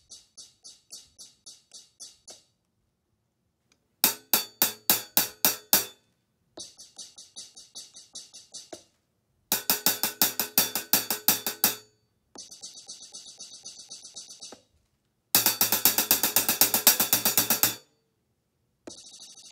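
A hi-hat played with drumsticks in a steady pattern of several strikes a second. The pattern comes in phrases about two seconds long with short pauses between, alternating softer and much louder.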